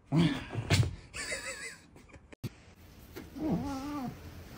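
Domestic cat meowing: one drawn-out meow about three seconds in, after a few shorter sounds in the first two seconds.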